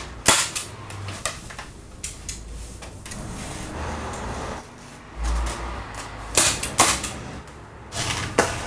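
Hand staple gun snapping staples through roofing underlay membrane into a timber batten, a few sharp clicks in the first second and a half. Then the membrane rustles as it is folded over, with a low thud a little after five seconds and another short run of sharp clicks between six and seven seconds.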